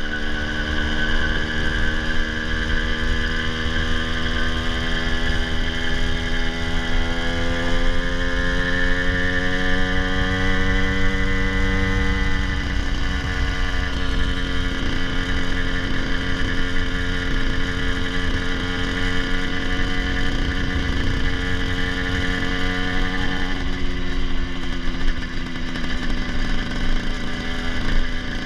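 80cc two-stroke motorized bicycle engine running under way, its pitch climbing over the first dozen seconds, then holding steady and easing off slightly near the end. The rider says it is four-stroking quite a bit and needs its ignition timing advanced.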